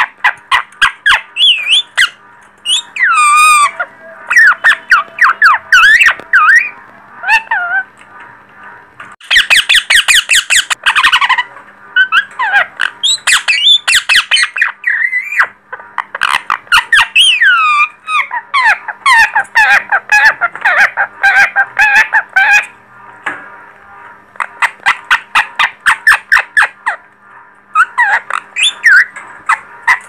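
Young yellow (lutino) ringneck parakeets squawking and chattering in fast runs of short, shrill calls, broken by brief pauses.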